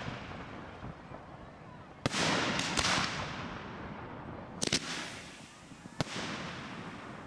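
Aerial fireworks bursting overhead: about five sharp bangs, two of them close together near the middle. Each bang trails off in a long echoing rumble.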